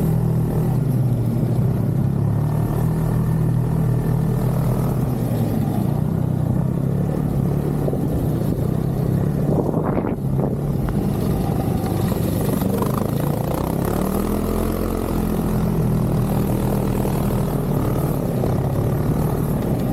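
Snowmobile engine running steadily, its pitch shifting a little and rising briefly about three quarters of the way through. There is one short sharp sound about halfway through.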